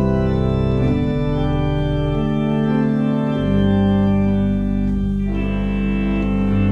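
Church pipe organ playing held chords on the manuals over deep pedal bass notes, the harmony changing several times.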